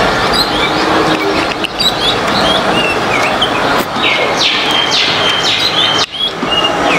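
Small birds chirping repeatedly in short, quick notes, with a run of downward-sweeping chirps in the middle, over a loud steady rushing noise that drops out for a moment near the end.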